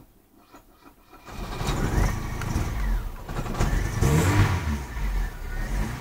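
Opel Vectra engine starting about a second in, then running unevenly and misfiring, which the owner puts down to low voltage in the electrical supply.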